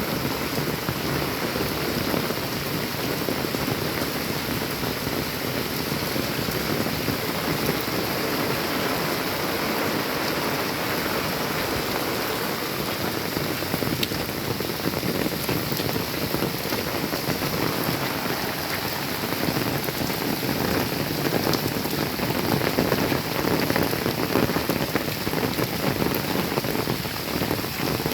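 Steady rain falling and pattering on surfaces, with many small individual drop hits, growing a little heavier in the last few seconds.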